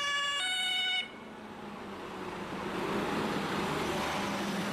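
German fire engine's two-tone siren sounding its alternating high and low notes, cutting off about a second in. Then the engine and road noise of the Mercedes-Benz turntable ladder truck swell as it drives past with blue lights on.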